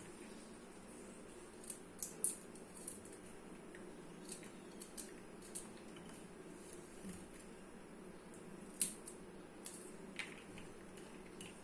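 A kitchen knife cutting garlic on a chopping board: about a dozen light, irregular knife clicks spread out over a faint steady hum.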